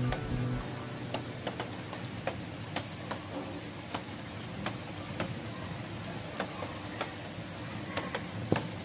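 A steady background hiss with sharp, short ticks coming roughly twice a second, not quite evenly spaced.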